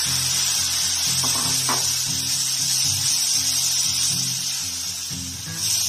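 Spiced curd-and-masala paste sizzling steadily in hot mustard oil in a kadhai as it is stirred with a wooden spatula, with background music playing.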